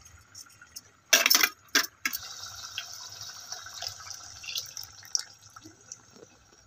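Leftover tamarind water poured from a mixer-grinder jar into a steel pot of frying masala paste, a steady splashing pour. Two brief loud clatters come about a second in.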